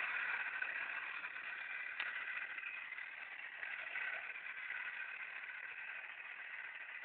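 Small electric motor of a homemade toy tractor whirring steadily as it drives along pulling a trolley, with a single faint click about two seconds in.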